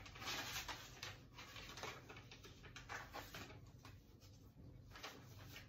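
Faint rustling and scraping of belongings being rummaged through and handled by hand: a string of brief, uneven rustles, a little louder near the start and about three seconds in.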